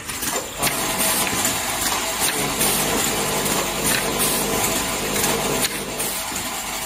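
Automatic broom-handle cap nailing machine running: a steady rushing mechanical noise with a faint steady tone and a few sharp knocks, easing off about five and a half seconds in.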